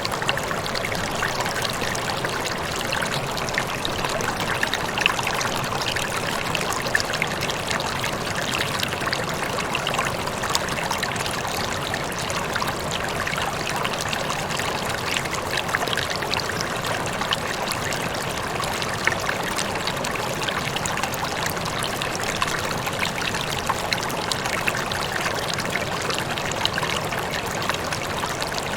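Rippling water running and trickling steadily, with a constant scatter of small splashes and droplet sounds.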